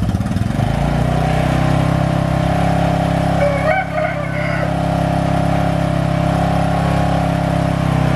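A small engine running, uneven for about the first second and then holding a steady, even speed.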